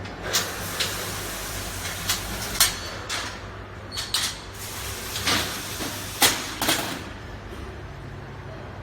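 A galvanised steel wire-mesh collapsible pallet cage being taken apart: a series of metal clanks and rattles, about nine in the first seven seconds, as its panels are unlatched and moved. A steady low hum runs underneath.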